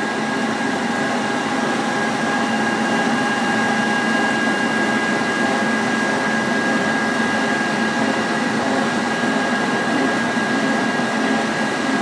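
Grape-sorting conveyor machinery running in a winery cellar: a steady mechanical drone with a constant high whine.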